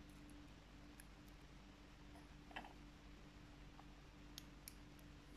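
Near silence with a few faint metallic clicks as steel tweezers set small pins into a barrel lock's body. A faint steady hum sits underneath.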